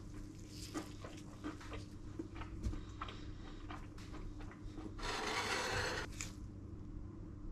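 Knife and fork clicking and scraping against a ceramic plate as an omelette is cut, a sharp click every half second or so, over a steady low hum. About five seconds in comes a second-long rushing noise, the loudest sound here, then one last click as the cutlery is set down on the plate.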